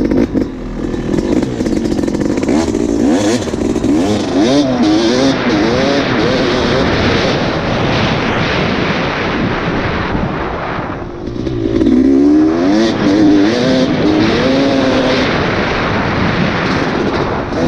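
Off-road vehicle engine revving up and down repeatedly while riding, in two spells of throttle about three seconds in and again past the middle. Heavy wind noise on the microphone covers much of it.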